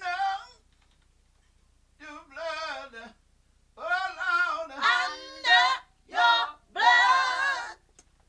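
Gospel vocals sung unaccompanied, in short phrases with a wavering vibrato and brief silences between them.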